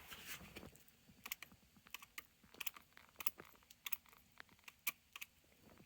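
A string of light, irregular clicks and taps, with no words.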